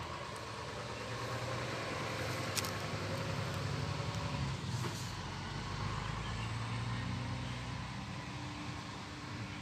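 Low engine drone of a motor vehicle, swelling and fading twice, with a couple of sharp clicks over it.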